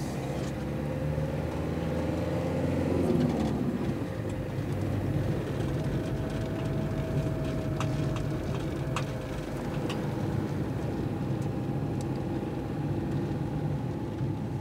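Car engine and road noise heard from inside the cabin. The engine pitch rises for about three seconds, then falls away, and after that it runs steadily, with a few light clicks.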